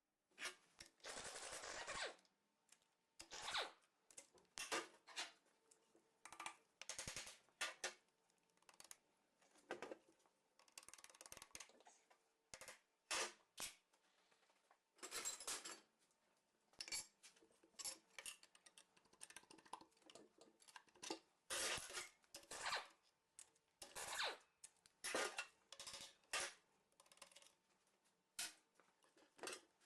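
Irregular clinks, taps and scrapes of metal tools and engine parts being handled on a workbench, with a longer scrape near the start.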